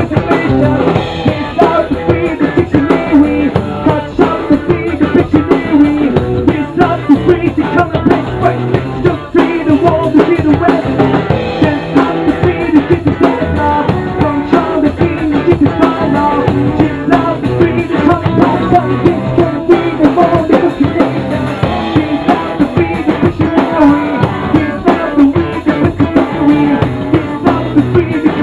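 Rock band playing live: a drum kit with kick and snare hits, electric bass guitar, and a singer's vocals.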